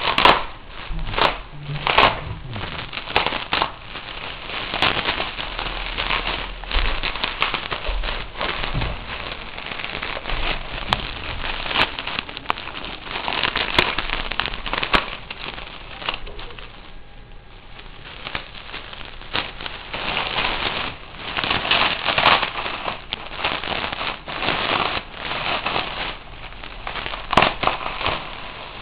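Plastic bubble wrap crinkling and crackling, with sharp pops, as it is pulled and cut open with a utility knife; it is briefly quieter a little past halfway.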